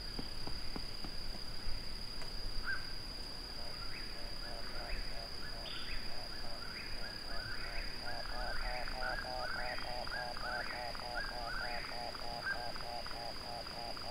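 Eastern whip-poor-will singing its repeated 'whip-poor-will' phrase, each ending on a rising note, over frogs calling in a fast, even run of short notes about four a second. A steady thin high whine runs underneath.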